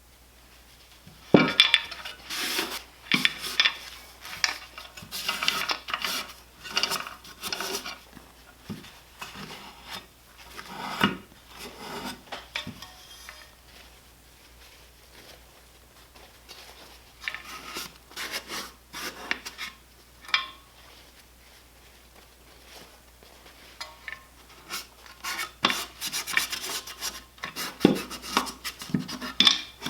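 Hand scrubbing and wiping of an old boat motor's casing during cleaning with degreaser: scratchy rubbing strokes in irregular bouts, with short pauses between.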